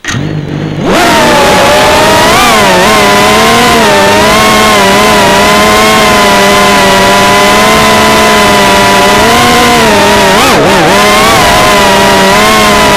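FPV whoop drone's brushless motors and propellers spinning up on arming, then whining loudly in flight. The pitch wavers up and down with the throttle and dips and wobbles briefly about ten and a half seconds in.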